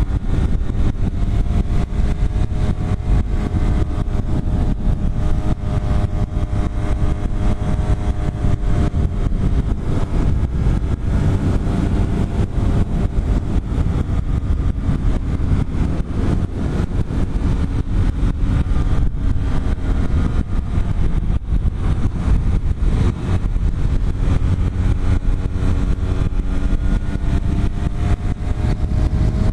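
BMW F800 GS parallel-twin engine running steadily at road speed, its pitch dipping and rising gently with the throttle through the bends, under a heavy low rush of wind noise on the bike-mounted microphone.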